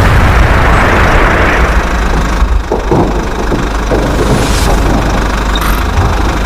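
A heavy vehicle's engine running, with a low steady rumble, a louder noisy surge in the first two seconds and a few short knocks about three to four seconds in.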